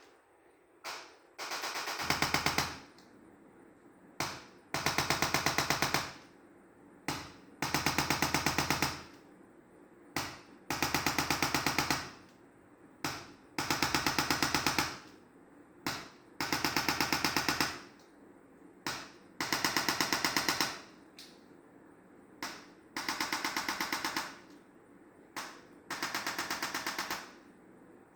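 Electric chiropractic adjusting gun firing rapid trains of percussive impulses, about a second at a time, repeating every two to three seconds, each burst usually preceded by a short single click.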